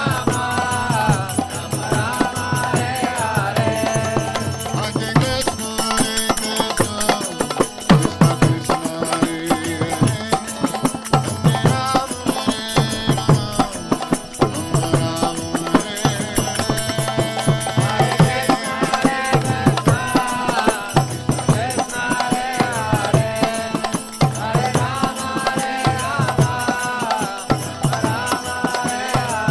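Kirtan: voices chanting a mantra in a melody, over a steady rhythm of hand drum strokes and small hand cymbals.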